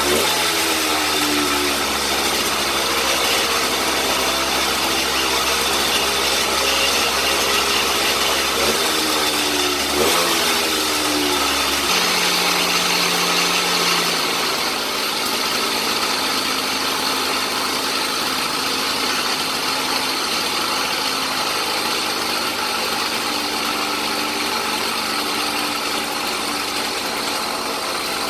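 Small single-cylinder two-stroke motorized-bicycle kit engine running. Its revs rise and fall near the start and again about ten seconds in, then it settles into a steadier run.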